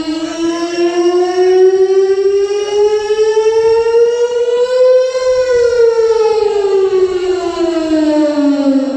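A siren wailing: one long tone that rises slowly for about five seconds, then falls back to its starting pitch.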